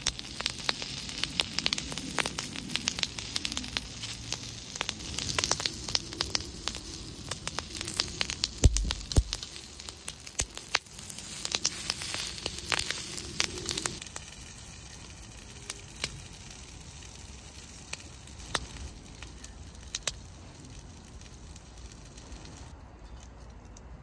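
Wood fire crackling with many sharp pops; about two thirds of the way through the crackling thins out to a few scattered pops.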